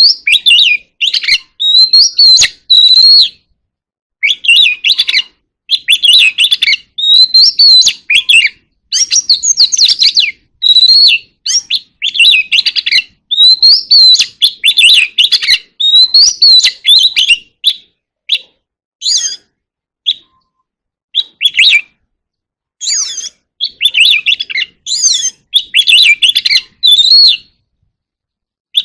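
Oriental magpie-robin singing its vigorous contest song: loud, varied whistled and warbled phrases, each a second or two long, with short pauses between them.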